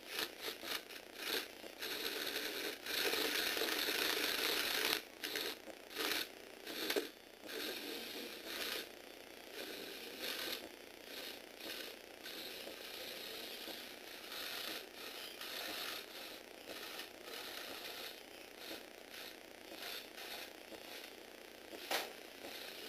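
Lego Technic vehicle's motor and plastic gears whirring and rattling as it drives across a wooden floor, loudest in the first few seconds and growing fainter as it moves away. A single sharp click near the end.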